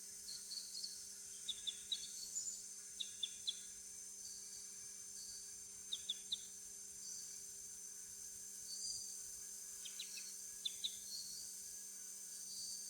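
Rainforest ambience: a steady, high-pitched insect drone, with short high chirps in quick groups of about three every few seconds. A faint low hum runs underneath.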